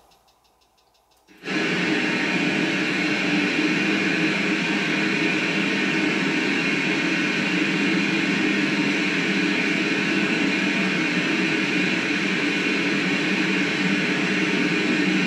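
Steady, dense hiss of ITC portal (ghost-box style) noise, switched on suddenly about a second and a half in after near silence and running on evenly, used to listen for spirit voices.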